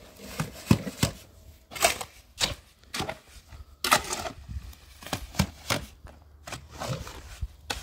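An irregular series of sharp knocks and clicks, a few a second.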